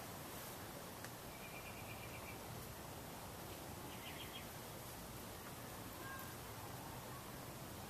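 CEC 48-inch four-metal-blade ceiling fan running with a steady, faint whir. A few short, high chirping trills sound over it about a second and a half in and again about four seconds in.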